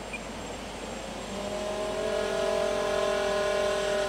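Twin contra-rotating brushless motors with small air propellers on an RC boat whining, the pitch rising as the throttle opens about a second in, then held high until it drops away at the end. A steady hiss of wind or water runs underneath.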